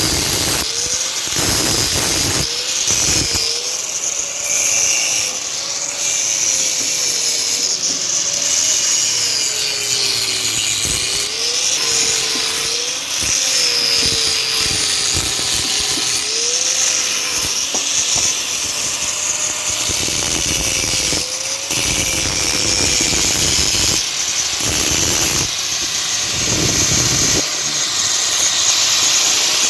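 Handheld electric power tool running continuously, its motor pitch dipping and recovering again and again as it is pressed into the work and eased off.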